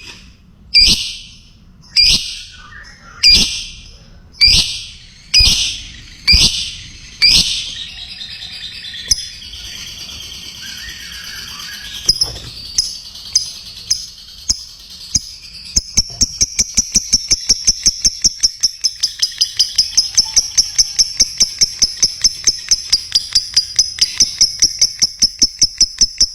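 Lovebird calling: shrill calls about once a second, then quieter chatter, then from about two-thirds of the way through a long, fast, even chattering trill (the 'ngekek'), about five notes a second.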